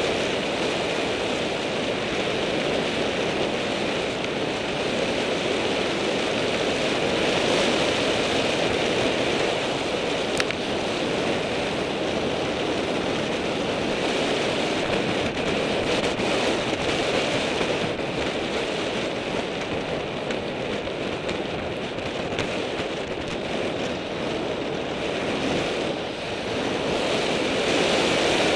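Steady rush of wind over the microphone of a camera on a bicycle during a downhill ride, mixed with bicycle tyres rolling over a rough gravel and broken-asphalt road. A single sharp click about ten seconds in.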